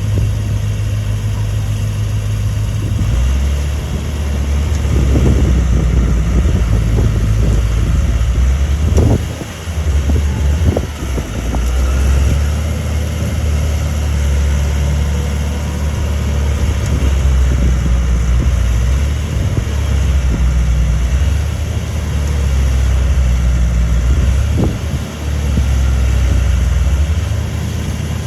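Komatsu D31A crawler bulldozer's diesel engine running loud and steady under work. Its note drops a few seconds in, and the level dips briefly a couple of times.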